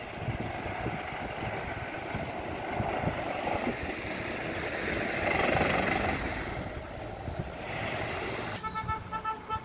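Road and wind noise of a motorbike ride, swelling to its loudest about halfway through. In the last second comes a quick run of short, evenly spaced beeps.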